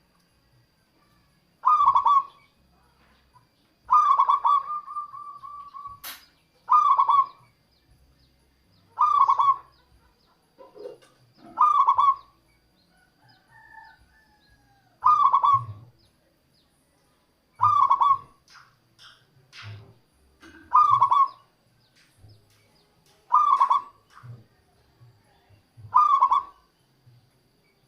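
Zebra dove (perkutut) cooing: a short call every two to three seconds, with one longer, drawn-out call about four seconds in.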